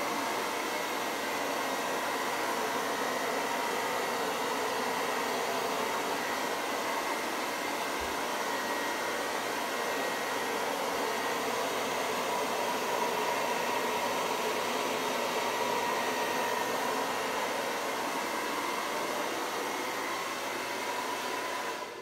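Handheld hair dryer with a concentrator nozzle attachment running steadily, a strong rush of air with a faint whine in it, used to blow wet acrylic pour paint across a canvas.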